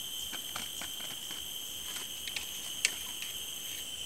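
A steady, high-pitched insect drone from crickets or cicadas in the forest, with a few faint short clicks, the sharpest about three seconds in.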